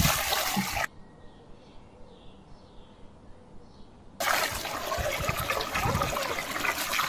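Water pouring into an aluminium basin and splashing as hands rinse and rub a whole raw chicken in it. The water sound drops away about a second in, leaving only faint background with a few soft chirps, and comes back loudly about four seconds in.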